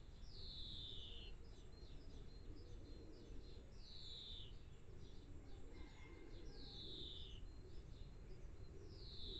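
Faint birdsong: one bird repeats a single falling note about every three seconds, four times, with shorter high chirps from other birds in between, over a low steady background noise.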